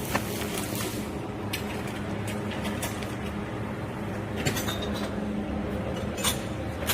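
CO2 hinge-welding machine humming steadily, with a hiss that stops about a second in and a few sharp metallic clinks.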